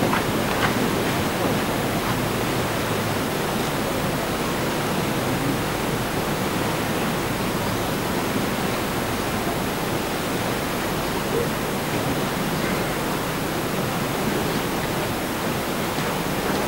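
Steady rushing of a river's rapids, an even unbroken noise.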